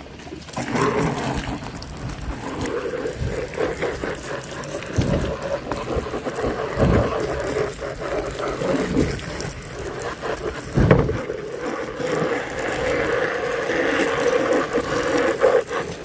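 Water running and splashing, with a few dull knocks.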